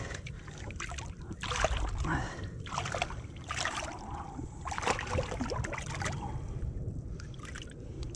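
Irregular splashing and sloshing of water at the side of a small boat as a schoolie striped bass is held in the water by hand, in quick uneven splashes.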